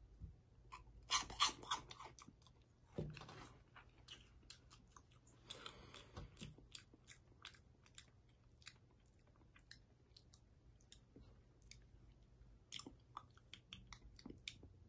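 A person chewing a crunchy puffed-corn Umaibo stick close to the microphone: faint crisp crunches, loudest and densest about a second in, then scattered bites through the rest.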